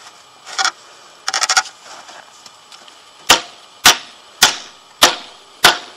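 A hammer tapping a 2.5 mm galvanised steel stay bracket down onto a timber fence post: five sharp, evenly spaced strikes about every 0.6 s, starting about three seconds in. About a second and a half in, a brief metallic rattle as the bracket is slipped on.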